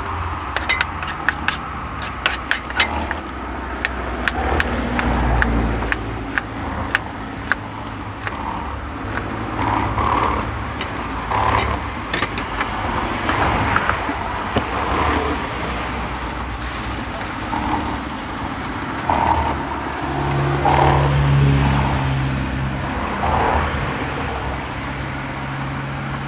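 Road traffic going by, with a car's engine hum that comes up about twenty seconds in, fades, and returns near the end. A run of short clicks and taps over roughly the first eight seconds.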